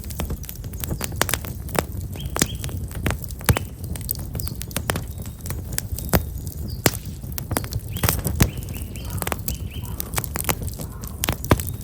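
Black locust firewood burning in an open campfire, crackling and popping with many sharp clicks over a low steady rumble. Small birds chirp briefly a few times.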